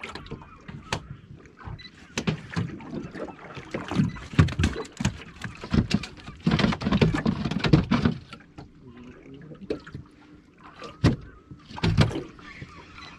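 Irregular knocks and water noise around a small fishing boat at sea, loudest about halfway through.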